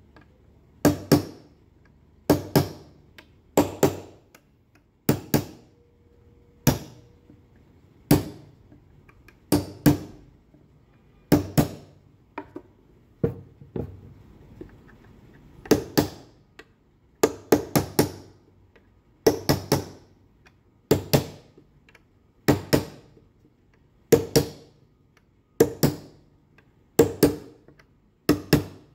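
Claw hammer tapping a steel nail set to sink nail heads just below the surface of pine boards. Sharp taps come in a steady series about every one and a half seconds, many of them as quick double taps.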